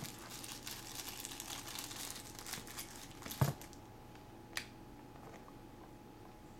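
Plastic packaging crinkling as it is handled for about three and a half seconds, ending in a knock, with a single sharp click about a second later.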